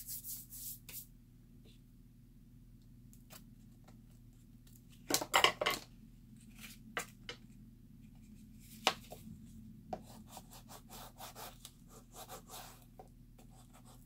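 Cardstock and paper being handled on a cutting mat, with short rubbing and scraping strokes as a bone folder is pressed along a freshly glued paper piece. A louder cluster of rustles and taps comes about five seconds in, then scattered light scrapes.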